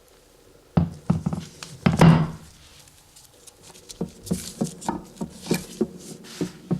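Metal-on-metal friction test rig for engine oil, knocking: a few loud knocks, then an even run of sharper knocks about three a second.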